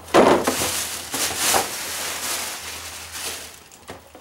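Cardboard parts boxes being handled and shuffled on a workbench: rustling and scraping, loudest in a burst just after the start, then dying down.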